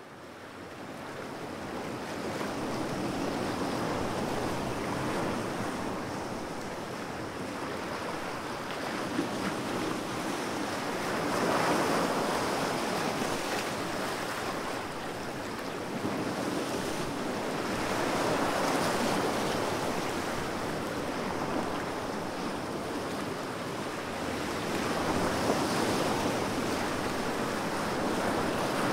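Ocean surf breaking on a beach, a steady wash that swells and eases with each wave about every seven seconds. It fades in over the first few seconds.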